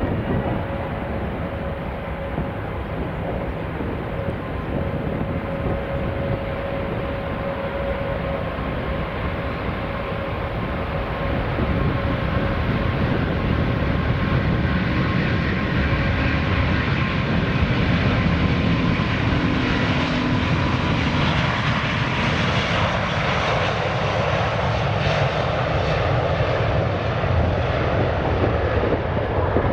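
Airbus A380-800's four Rolls-Royce Trent 900 turbofan engines running at low thrust as the jet lines up, then spooling up for the takeoff roll, growing louder from about twelve seconds in. A faint steady whine sits over a deep rumble.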